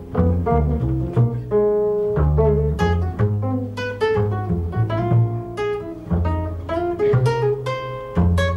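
Classical guitar and double bass playing jazz together: fingerpicked nylon-string guitar notes over a line of plucked low notes on the double bass.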